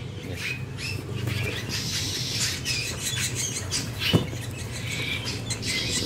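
Songbird nestlings in cardboard boxes giving short, high chirps on and off, with a single sharp tap about four seconds in.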